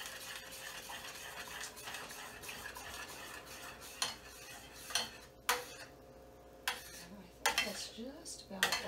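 Metal spoon stirring melted chocolate and butter in a small stainless steel saucepan, scraping steadily around the pan, then a handful of sharp clinks of the spoon against the pan in the second half.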